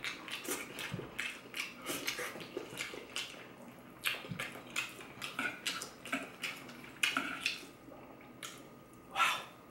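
Close-up mouth sounds of eating creamy Alfredo pasta: wet chewing and lip-smacking, many short sticky clicks, with a louder noisy sound near the end.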